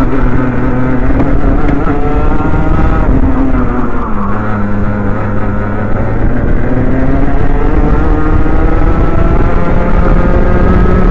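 Onboard sound of a Rotax Mini Max kart's single-cylinder two-stroke engine at racing speed. Its note drops about three to four seconds in as the kart slows for a corner, then climbs steadily as it accelerates out. The engine is running with a misfire that a new spark plug improved but did not cure.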